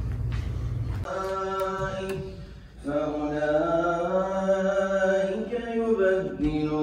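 A single man's voice chants Arabic liturgically in a mosque at the dawn prayer, in long, slowly bending held phrases. It comes in about a second in, pauses briefly near the middle and again near the end.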